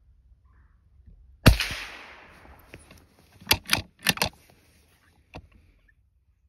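A single scoped rifle shot about one and a half seconds in, its report trailing off over about a second. About two seconds later comes a quick run of four or five sharp clicks, then one more click.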